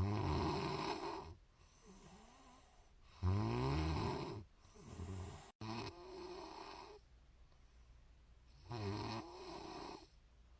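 A woman snoring in her sleep: four buzzing snores about three seconds apart, the first two loudest.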